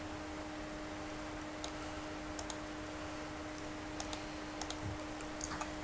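Computer mouse clicking about seven times, mostly in quick pairs, over a steady low electrical hum.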